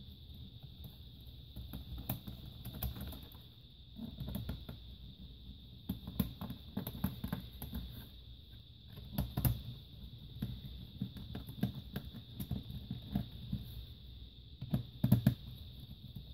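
Small screwdriver working the screws in the plastic underside of an HP Pavilion DV6 laptop: scattered clicks, taps and scrapes of the tool and hands on the case, with a couple of louder knocks. A faint steady high tone runs underneath.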